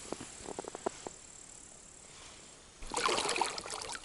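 A few faint clicks from the baitcasting reel, then about three seconds in, loud water splashing and sloshing right beside the raft.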